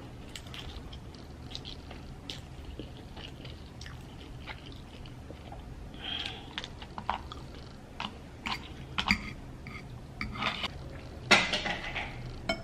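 Close mouth sounds of a person eating noodles, chewing in short, scattered crackles, with light clicks of a metal fork against the plate. The sounds grow busier in the second half, and the loudest is a short burst near the end.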